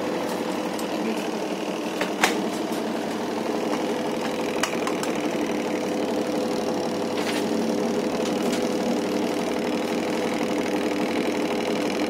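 Samsung top-loading washing machine's motor spinning the drum on its spin cycle: a steady mechanical hum with an even tone. A few light clicks about two and four and a half seconds in.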